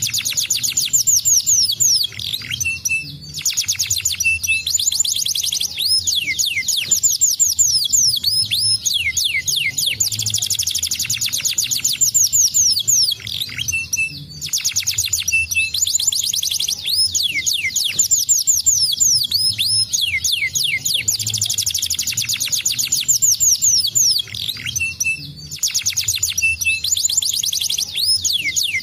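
Domestic canary singing in fast trills and rolls, with runs of quick downward-sweeping notes and a few brief pauses between phrases.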